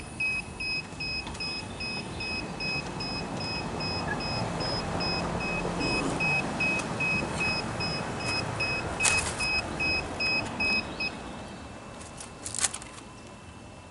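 DJI Phantom 3 Advanced remote controller beeping, short high beeps about three a second, which stop about eleven seconds in. A couple of sharp handling clicks, the loudest about nine seconds in.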